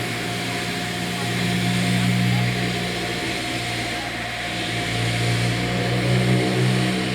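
A steady mechanical hum with a constant low drone and a few held tones over a background rush, like an engine running steadily.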